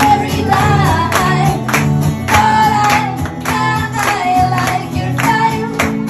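A woman singing a melody live into a microphone while strumming an acoustic guitar, amplified through a PA.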